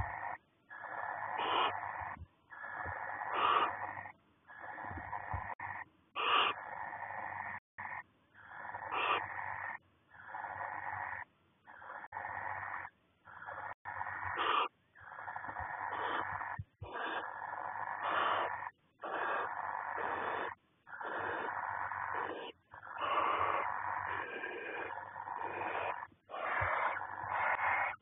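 Barn owl giving a long run of hissing, snore-like calls, one after another, each about a second long with short breaks between. This snoring hiss is the barn owl's food-begging call.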